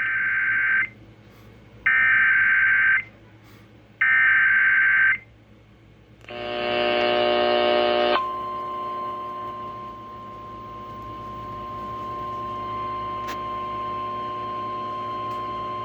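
Emergency Alert System tones broadcast over radio: three short screeching bursts of SAME header data about two seconds apart, a brief buzzy tone, then the steady 1050 Hz National Weather Service alert tone held for about nine seconds, announcing a severe thunderstorm warning.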